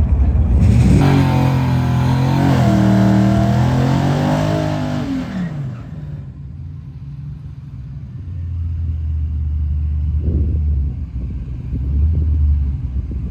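Car engine revving hard under acceleration. Its pitch climbs, dips once at a gear change, climbs again, then falls away about five seconds in. A lower, steady engine rumble follows.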